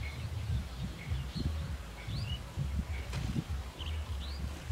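Small birds chirping, short quick rising chirps about once a second, over a low uneven rumble.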